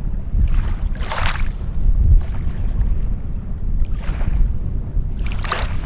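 Water washing and splashing at the water's edge in two short surges, about a second in and near the end, over a steady low rumble of wind on the microphone.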